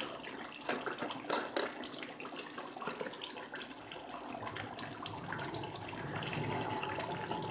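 Beef karahi gravy simmering in a steel karahi over a gas flame, a steady bubbling and sizzling of oily curry with a dense crackle, and a few sharper clicks of the wooden spoon in the first two seconds.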